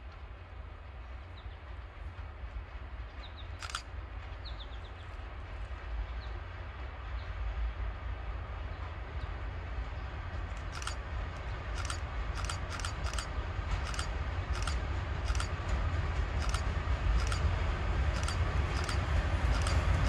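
An approaching train hauled by an MLW M420 and an Alco C420 diesel locomotive: a low engine rumble that grows steadily louder. From about halfway in, a regular clicking comes from the rails as the wheels draw near.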